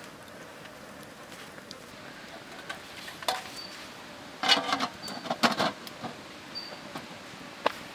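Upturned aluminium bowl being set over a steel wok as a steaming lid: a cluster of metal clanks and scrapes about four and a half to five and a half seconds in, with a lighter click before and another near the end.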